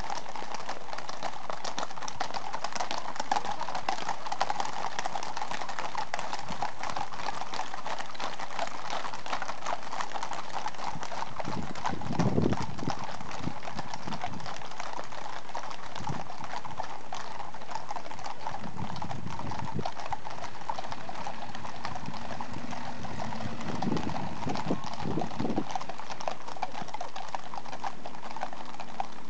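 Many horses' hooves clip-clopping on a tarmac road as a large group of riders walks past at a walk, a steady overlapping clatter. A few brief lower sounds break in around the middle.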